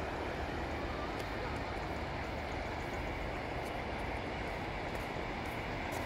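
Steady beach ambience: a continuous, even wash of surf and wind noise with no distinct events.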